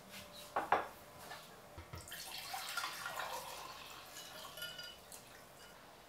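A ceramic plate set down on a stone countertop with two quick clinks, then a drink poured into a ceramic mug for about two and a half seconds.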